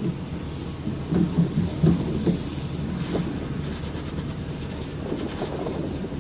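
Water spraying from a garden hose: a steady rushing hiss that starts suddenly, with irregular knocks and clatter in the first half.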